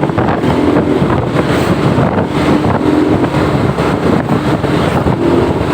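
Loud, steady rush of road noise from buses passing close by, with wind buffeting the microphone.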